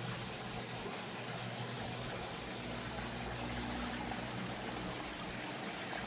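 Creek water running steadily, an even rushing-trickling hiss. A faint low hum sits under it for a few seconds in the middle.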